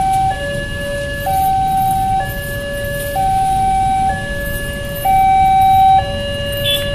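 Synthesized electronic railway level-crossing alarm sounding a hi-lo two-tone pattern, a louder higher tone and a lower tone each held about a second in turn, signalling that the crossing is closed for a train. Road traffic rumbles underneath.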